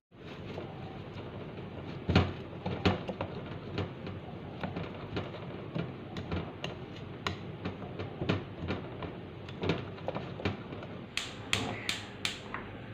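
Metal fork clinking and tapping against a ceramic bowl while stirring quick-oats pancake batter, in irregular taps about two to three a second. A few sharper clicks come near the end.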